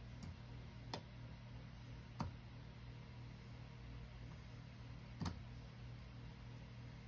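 A few faint, sharp metallic clicks from a lock pick and tension wrench working inside a Mul-T-Lock Junior lock, four in all and irregularly spaced, over a steady low hum.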